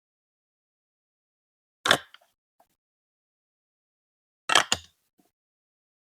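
Sharp clacks of hard plastic Lego Duplo pieces: one about two seconds in, then two close together about four and a half seconds in, with dead silence between.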